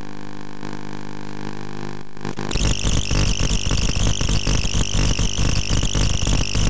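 Music: a steady held chord, then a loud, fast drumbeat comes in about two and a half seconds in and runs on.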